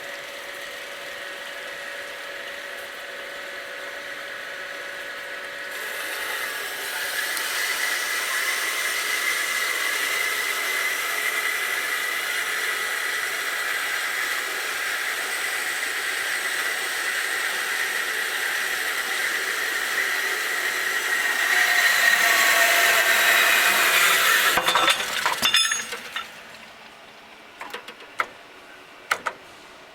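Saw blade of a CNC machining center cutting: a steady whining cut that grows louder about six seconds in and again near the end, then stops abruptly. A few sharp clicks follow.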